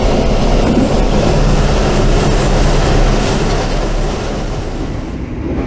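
A train running on the rails: a loud, steady rumble with a low hum beneath it, easing slightly near the end.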